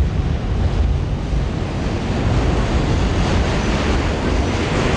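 Wind buffeting a camcorder microphone: a loud, steady rumbling hiss that gusts slightly, heaviest in the low end.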